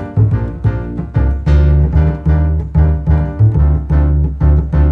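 Background music led by keyboard, with a steady rhythm of notes over a bass line that gets heavier about one and a half seconds in.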